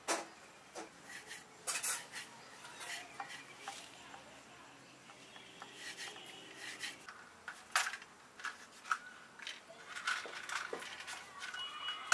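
Light clatter of kitchen utensils being handled: scattered clicks and small knocks, with a sharper knock at the very start and another about 8 seconds in.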